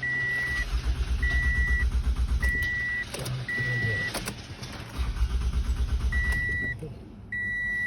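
A 2012 Toyota Camry's starter cranking the engine in two bursts of about two seconds each, a fast even low chugging, while a dashboard warning chime beeps steadily about once a second.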